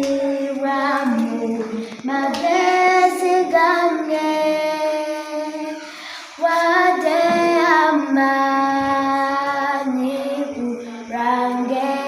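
A high voice singing long, held, wavering notes of a Luganda gospel song, with short breaks for breath about 2 and 6 seconds in.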